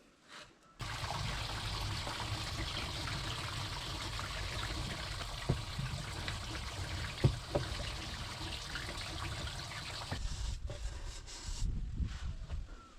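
Water running and splashing steadily. It starts suddenly about a second in, has a couple of sharp knocks partway through, and turns choppy and intermittent near the end.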